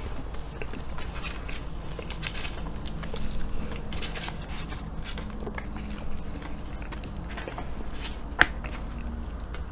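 A person chewing and smacking on a mouthful of Hershey's sundae pie, with small clicks and scrapes of a plastic fork cutting into the pie on its paper wrapper; one sharp click comes about eight seconds in.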